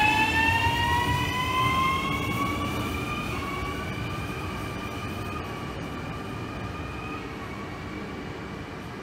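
ČD class 640 RegioPanter electric multiple unit accelerating away from the platform, its traction motors whining in a chord that rises in pitch over the first few seconds and then levels off. Under the whine is the rumble of the wheels on the rails, and the whole sound fades steadily as the train draws away.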